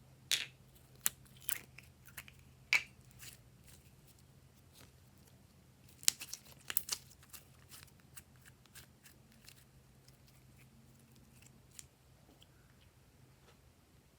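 Glossy slime being worked by hand, giving scattered sharp clicks and pops, a cluster of them about six to seven seconds in. A faint steady low hum runs underneath.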